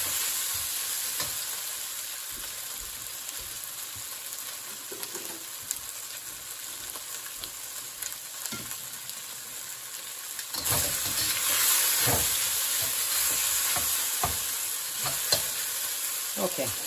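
Diced chicken thigh, about half cooked, sizzling in oil in a wok while a metal wok spatula stirs and scrapes it, with scattered clicks of the spatula on the pan. The sizzle grows louder about two-thirds of the way through.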